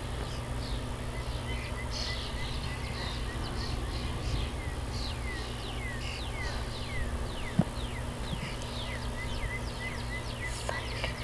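Birds calling outdoors: many short, high chirps that fall in pitch, and runs of quick repeated notes near the start and again near the end, over a steady low background rumble.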